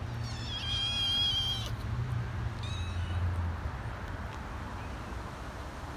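Kitten meowing: one long, high-pitched meow, then a shorter, fainter one about a second later.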